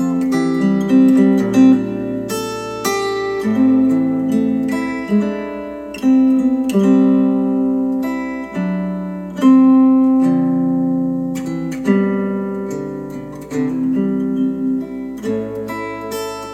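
Acoustic guitar music, plucked notes and chords each ringing and dying away, played back through KEF LS50 Meta bookshelf speakers.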